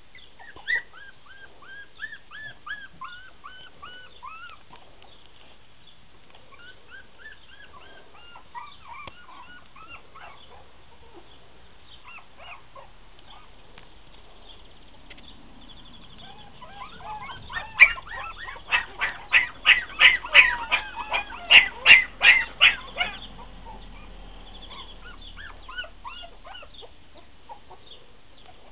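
Puppies whimpering and squeaking in short, high-pitched whines, on and off. About two-thirds of the way through comes a loud run of rapid yapping, about three yaps a second for some five seconds, then the whimpering goes on.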